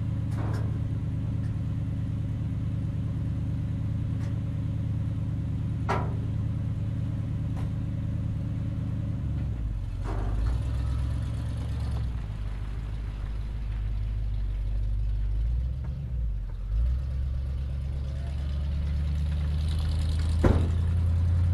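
A motor vehicle engine idling steadily, its low note shifting deeper a little before halfway and again near two-thirds through. A few sharp clanks are heard, the loudest near the end.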